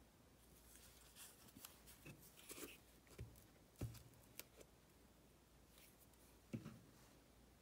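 Quiet handling of a glue stick and paper scraps on a tabletop: soft rustles and a few light knocks, the sharpest about four seconds in, as the glue stick is picked up and uncapped.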